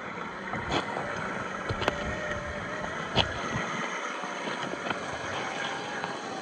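Traxxas TRX4 RC crawler driving over rough ground, its 550-size brushed electric motor whining and rising and falling with the throttle. A few sharp clicks and knocks come from the wheels and chassis on rocks.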